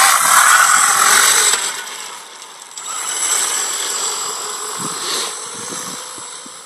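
Electric mini moto with a 3 kW RC motor pulling away and riding across grass: a steady high whine with noise and rattle, loudest for the first second and a half, then fading as it moves off.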